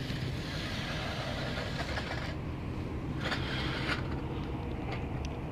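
Rustling and handling noise from hands and clothing as a crappie is unhooked, in a few short bursts over a steady low rumble.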